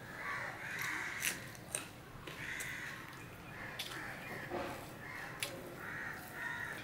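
Fingers mixing rice and curry on a stainless steel plate: soft wet squishing with several sharp clicks of fingers against the plate. Behind it come repeated short harsh calls.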